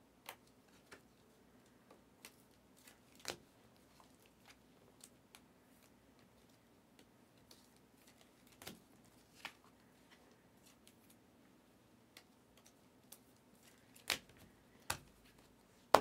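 Faint clicks, taps and light rustles of trading cards being handled and set down on a table, with two sharper taps near the end.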